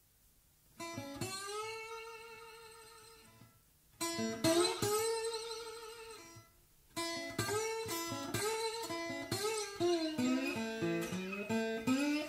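Solo blues guitar playing three phrases. Each opens with a struck note that is held with a wavering vibrato and dies away, and the last phrase runs into a string of sliding, bent notes.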